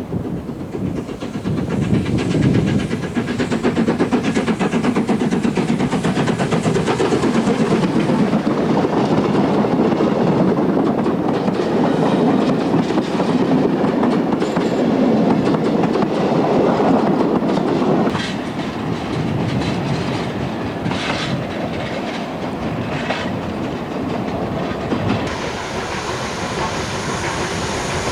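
A train hauled by the GNR No. 171 4-4-0 steam locomotive, with wooden-bodied carriages, running on the line, its wheels clattering over the rail joints. The sound is loud for about the first two-thirds, then drops to a lower, steadier level about 18 seconds in.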